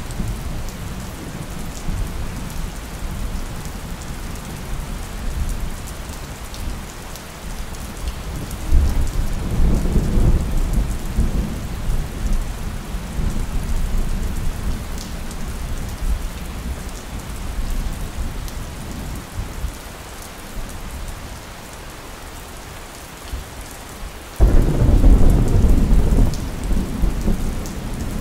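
Steady rain falling with rolling thunder. A low rumble swells about a third of the way in, and near the end a sudden loud thunderclap breaks, then rumbles on as it eases.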